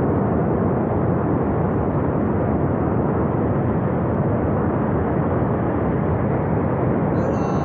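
Flash flood of water and debris surging down a mountain river gorge: a steady, deep rushing rumble that holds at one level throughout.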